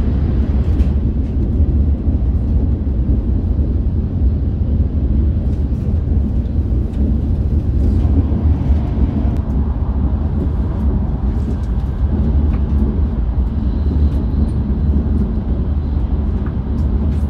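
Cabin noise of a Tohoku Shinkansen Hayabusa bullet train running at high speed, about 310 km/h: a steady low rumble and rush.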